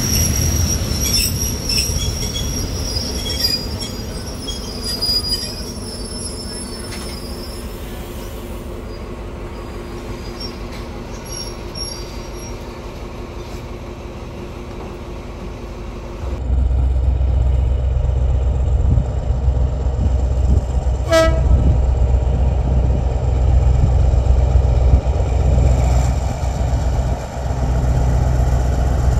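Rumble of freight wagons on the rails with high-pitched wheel squeal from a container freight train passing close alongside; the squeal fades after several seconds. About halfway through it switches abruptly to the loud, steady low drone of an approaching diesel locomotive hauling container wagons, growing louder toward the end.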